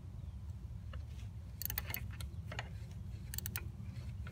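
Small hand ratchet clicking in short bursts of quick clicks as a starter mounting bolt is turned tight.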